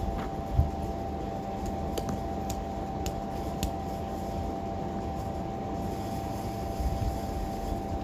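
Steady mechanical hum with a constant mid-pitched tone over a low rumble, with a few light clicks in the first four seconds.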